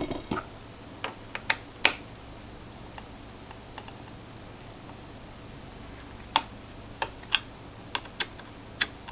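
Small Phillips screwdriver and fingers clicking against a laptop's plastic underside while the hard-drive panel screws are loosened: about a dozen scattered, irregular sharp clicks and taps, a few of them louder in the second half.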